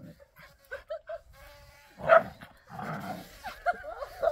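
A dog whining in thin, high notes, with one loud bark about two seconds in.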